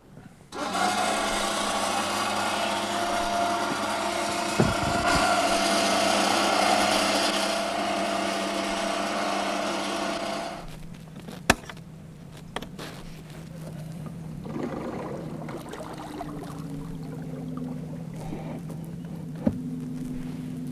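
Motor-driven rail boat-launch carriage running down its track with a boat aboard: a loud, steady mechanical hum with a fixed pitch and a single knock, stopping abruptly about ten seconds in. A quieter, lower hum with a few knocks follows as the boat reaches the water.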